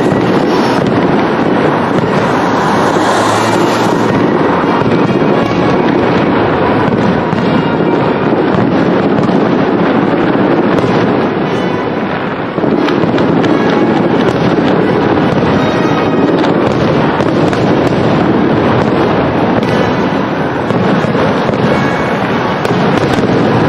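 Fireworks going off in a continuous dense barrage of bangs and crackling, dipping briefly a little past halfway.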